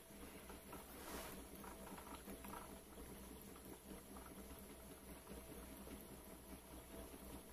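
Faint running of a propane-fired Stirling engine generator, slowing down on leftover heat after its propane flame has been shut off.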